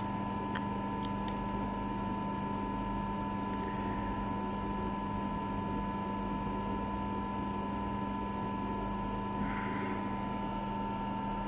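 Steady electrical hum from workshop machinery, with a few faint clicks early on and a brief soft scrape near the end as digital calipers are set on the shaft.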